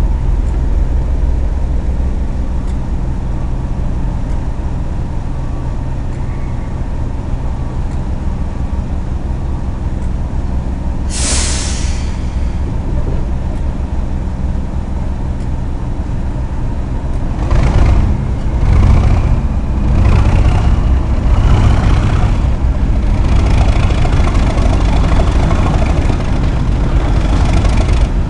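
Class 37 diesel locomotive's English Electric V12 turbocharged engine running steadily, with a short burst of air hiss about 11 seconds in. About 17 seconds in the engine opens up and gets louder, and a whistle, typical of the Class 37's turbocharger, rises in pitch as it picks up.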